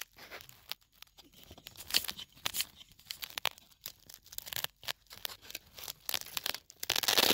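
A Velcro hook-and-loop fastener being pulled apart in a series of short rips, with hand-handling noise on the camera, the loudest rip near the end.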